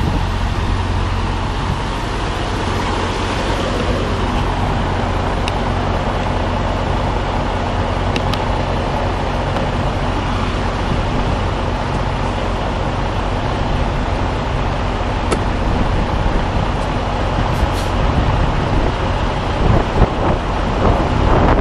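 Semi-truck diesel engine running at low speed with a steady low hum during a slow backing manoeuvre, with a few faint sharp ticks. It turns to an uneven, louder low rumble near the end.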